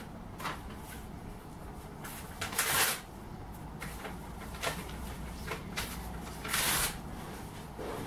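A common starling feeding at a hanging seed feeder: a few short rustling, clattering bursts of wings and feeder. The two loudest, each about half a second long, come near the middle and towards the end, over a steady low hum.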